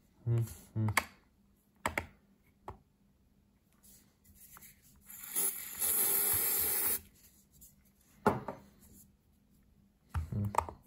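Aerosol can of super-glue activator sprayed once in a steady hiss of about two seconds, near the middle. Short knocks and handling of plastic lens parts come before and after it.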